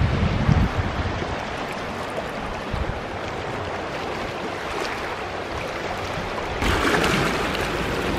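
Small sea waves washing over a rocky shore, with wind buffeting the microphone. The wash grows louder about two-thirds of the way in.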